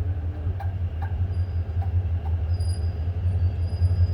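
Steady deep rumble of a train at the station platform, with a few faint clicks.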